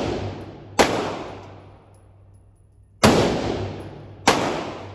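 Three gunshots on an indoor shooting range: one about a second in, then two more about a second apart near three and four seconds. Each crack fades away in a long echoing decay.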